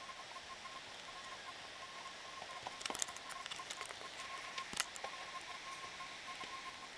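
Steady rush of a fast mountain river over rocks, with a few sharp clicks around the middle, the loudest one about five seconds in.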